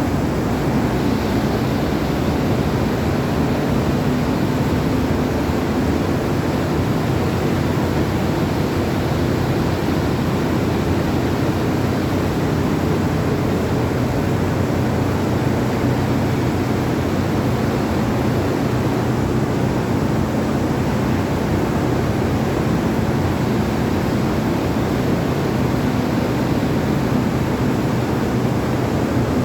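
Paddy grain dryer running steadily on a test run: a loud, even mechanical rush with a low hum underneath, unchanging throughout.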